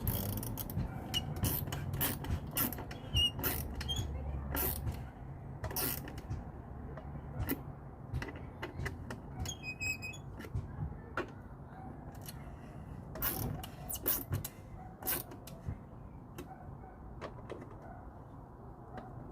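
Scattered, irregular clicks and taps of hands and tools working on a motorcycle's headlight and bezel assembly, over a low steady hum. A short high chirp comes about ten seconds in.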